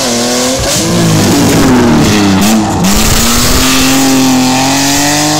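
Rally car engine revving hard. Its pitch drops and climbs again several times in the first three seconds as the driver lifts off and changes gear, then rises steadily as the car accelerates.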